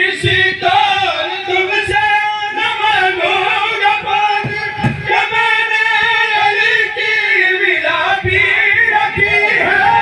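A man's amplified voice singing a long, drawn-out melodic recitation in the style of a zakir's majlis, with a few dull thumps.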